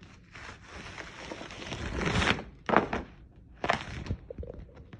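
Clear plastic wrap over a table crinkling and rustling under hands rubbing and pressing on it, building over about two seconds, then two sharper crackles about a second apart.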